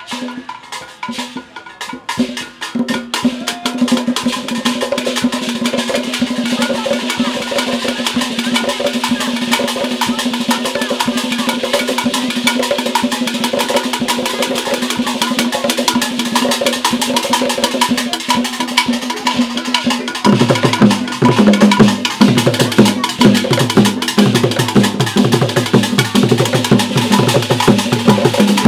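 Ghanaian traditional drum ensemble playing a fast rhythm on carved wooden drums, with sharp clicking strokes. About twenty seconds in, deeper drum strokes come in and it grows louder.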